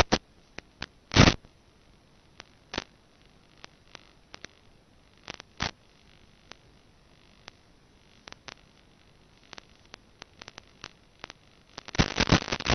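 Radio static from an analog 5.8 GHz FPV video link's audio channel, which has no microphone fitted. Scattered sharp clicks and short crackles come as the video signal breaks up, and a dense run of loud static bursts starts near the end.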